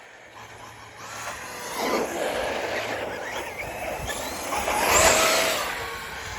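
Arrma Fireteam 6S brushless RC car running under throttle, its motor whine gliding up and down over tyre and drivetrain noise. It builds from about a second in, is loudest around five seconds in, then fades.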